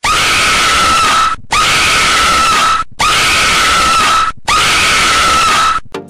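A very loud screaming sound effect used as a jump scare, playing four times in a row. Each scream is about a second and a half long and the four are near-identical, split by brief silences.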